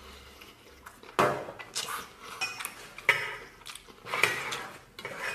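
Utensils knocking and scraping against cookware, with a few sharp clinks, the loudest about a second in, three seconds in and four seconds in.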